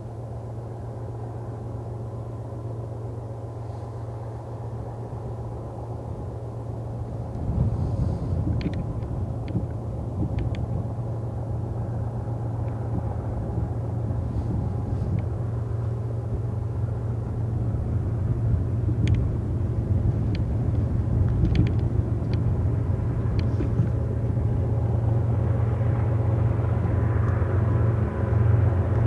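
Diesel locomotives of an approaching BNSF intermodal train, led by GE ES44C4 No. 6839 with its V12 GEVO engine, running with a steady low drone that steps up about seven seconds in and keeps growing louder as the train comes closer. A scatter of faint short clicks sounds through the middle.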